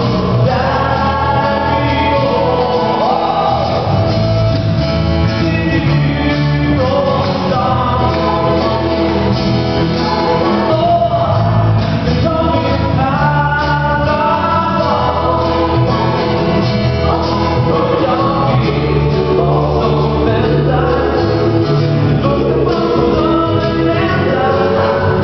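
A man and a woman singing a Swedish song together live, accompanied by guitars.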